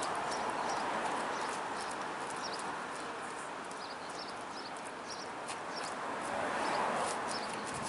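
Outdoor street ambience: a steady hiss of traffic and city noise, with small birds chirping over it in many quick, high, repeated notes, and scattered light taps.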